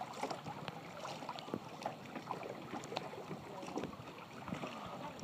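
Soft river water sounds around a small craft drifting on the river: light lapping with scattered small splashes and ticks.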